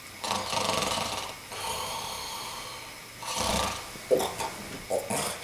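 A man snoring with his head tipped back: three long snores, then a few short, sharp breaths near the end.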